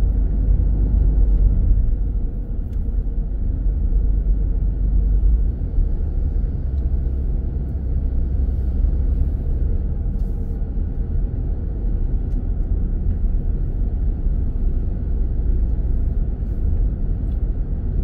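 A moving car's steady low road and engine rumble, heard from inside the cabin.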